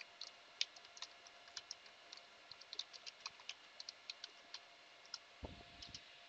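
Faint computer keyboard typing: quick, irregular key clicks, several a second, as a terminal command is typed and entered.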